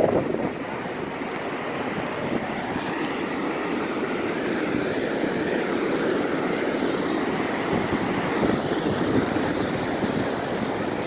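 Heavy storm surf breaking and washing ashore, a steady rush of noise, with wind buffeting the microphone.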